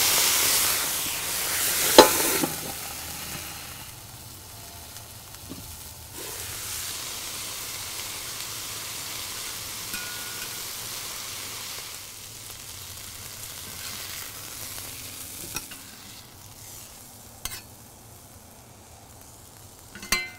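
Sake splashed onto a hot griddle sizzles loudly over asparagus, zucchini and shiitake mushrooms, then dies down after a few seconds, with a sharp click about two seconds in. The sizzle swells again for several seconds, and near the end metal spatulas click a few times on the griddle.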